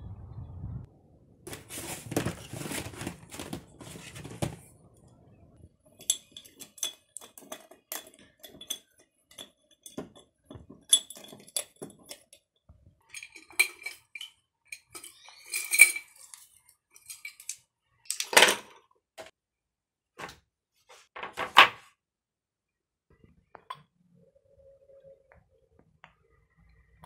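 Art supplies being handled: paintbrushes knocking and clinking in glass jars, a long run of small knocks and ringing clinks with a few louder knocks later on. Early on there are a couple of seconds of rustling noise.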